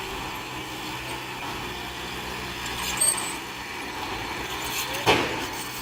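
Heavy diesel earthmoving machinery running steadily, with a short sharp knock about three seconds in and a louder sudden clank or hiss about five seconds in.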